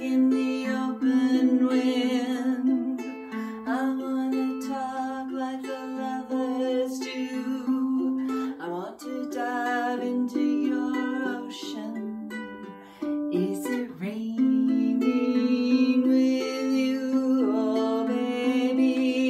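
Ukulele fingerpicked in a repeating arpeggio pattern, moving through the song's verse chord changes every few seconds.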